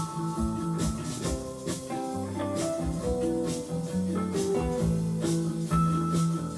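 Background music: guitar-led instrumental with held notes and a steady beat.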